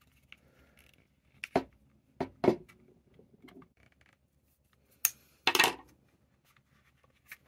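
A few sharp metallic clicks and knocks from a T-handle hex key working the screw of an aluminum Glock magwell baseplate as it is snugged tight. The key is then laid down on a wooden tabletop, giving the loudest knocks about five seconds in.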